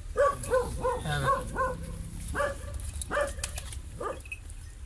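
A dog barking repeatedly in short barks: several in quick succession near the start, then single barks spaced about half a second to a second apart.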